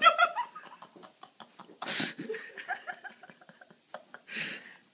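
Laughter and giggling, broken by a couple of short, breathy puffs of air.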